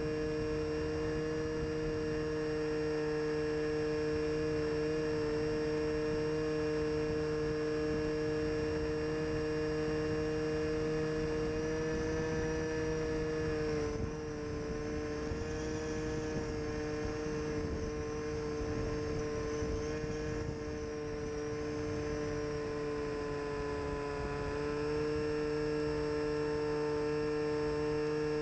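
Bixler RC model plane's electric motor and pusher propeller running with a steady high hum. About halfway through the sound eases and the pitch drops slightly as the throttle comes back, then it rises again near the end.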